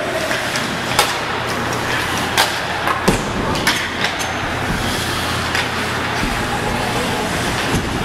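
Ice hockey game in a rink: a steady hum and hiss of the arena and skates on ice, broken by about five sharp knocks of hockey sticks and puck, the loudest a little after three seconds in.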